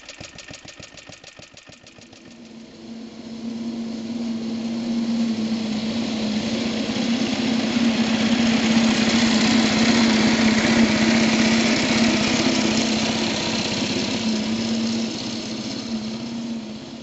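Suffolk Colt cylinder mower's small two-stroke engine: idling with an even, quick firing beat at first, then running under way as the mower cuts a strip across the lawn. It grows louder towards the middle and fades again near the end as it passes and moves away.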